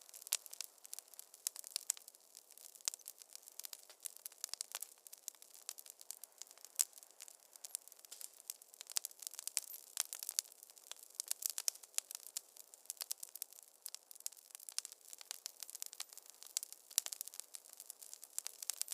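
Wood fire crackling in a fireplace: dense, irregular sharp pops and snaps over a faint steady hiss.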